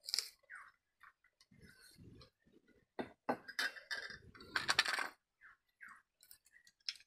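Light clinks and rustles of hands peeling onion and pressing it with tomato and green chilli in a small steel bowl, mashing them by hand for chutney. The handling noise comes in scattered short sounds and is busiest about three to five seconds in.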